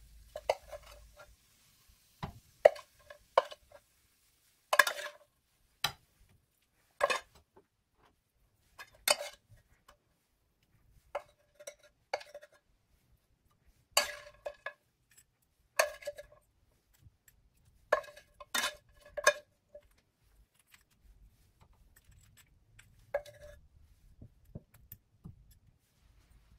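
A serving utensil clinking against a blue glass plate as food is served onto it: about a dozen and a half separate clinks, irregularly spaced a second or two apart, each ringing briefly.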